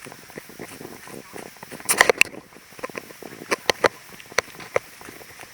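Footsteps crunching through dry leaves and twigs on a woodland trail: irregular sharp snaps and crackles, the loudest about two seconds in. Under them is a faint, steady rush of a distant waterfall.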